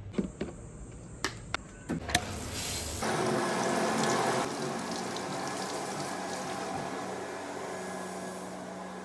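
A few short, sharp clicks, then, from about three seconds in, a bathtub tap running steadily, the water pouring over hair and splashing below.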